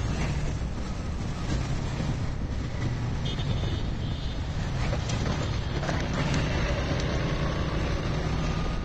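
Steady road noise heard from a moving vehicle in city traffic: a low engine hum with tyre and wind noise, and a brief high-pitched tone a little over three seconds in.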